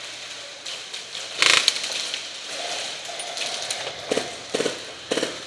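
Airsoft guns firing in rapid bursts: a loud burst about a second and a half in, then three short bursts near the end.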